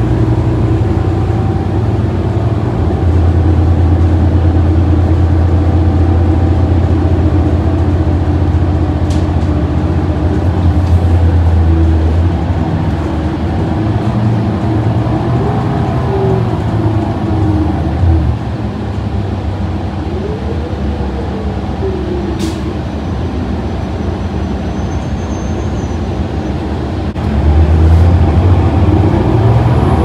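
Interior sound of a New Flyer Xcelsior XD40 diesel bus under way: the Cummins L9 engine and Allison B400R automatic transmission drone loudly with road noise. The drone eases off about two-thirds of the way through, with a few brief rising-and-falling whines, then comes back louder near the end.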